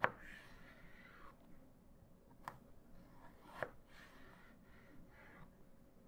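Firebox folding chef knife slicing through a raw potato on a cutting board. Soft slicing sounds are broken by sharp taps of the blade meeting the board: one at the start and two more in the middle.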